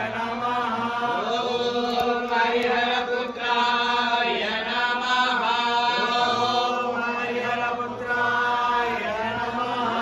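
Several men chanting homam mantras together in a continuous recitation, their voices gliding up and down in pitch.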